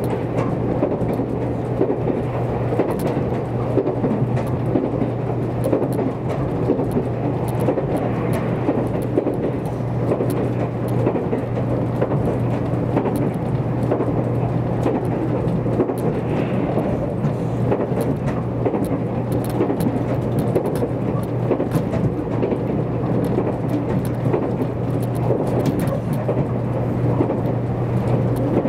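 Steady running rumble heard inside the passenger car of a JR Kyushu 783 series limited express electric train at speed, with a constant low hum beneath it.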